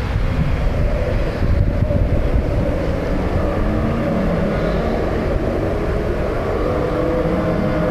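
Dinosaur roar sound effect: a loud, low rumbling growl with a wavering pitch that goes on without a break.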